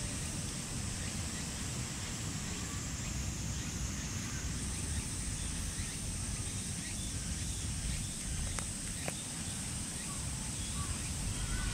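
Outdoor ambience: a steady high-pitched insect drone with a few faint bird chirps over a low wind rumble on the microphone.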